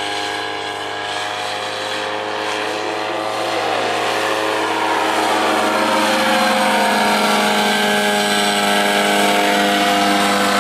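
BulliX paramotor trike's engine and pusher propeller running steadily under power in flight, getting louder as it comes closer, with its pitch dropping slightly in the second half.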